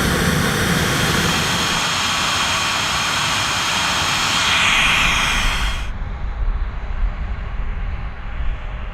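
Piaggio P-180 Avanti's twin pusher turboprop engines running loud, a dense hiss with steady high whining tones, swelling briefly about five seconds in. About six seconds in the sound cuts off suddenly to a much quieter low engine rumble.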